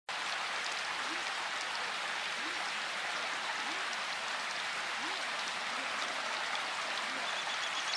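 Steady rain falling, an even hiss with no breaks, with a faint voice murmuring beneath it.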